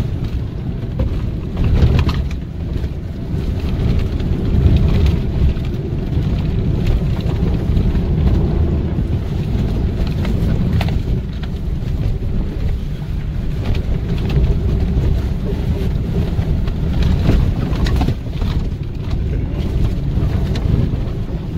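In-cab noise of a Mitsubishi Triton pickup driven hard over a rough dirt track: a steady low rumble of engine, tyres and suspension, with occasional sharp knocks.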